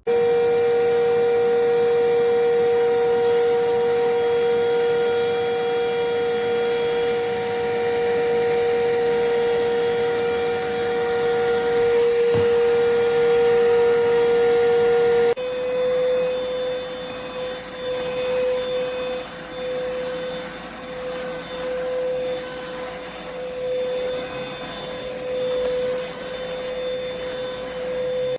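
Cordless stick vacuum motor running at full speed with a steady high whine, cutting in abruptly. About halfway through the pitch steps up slightly and the level starts to rise and fall.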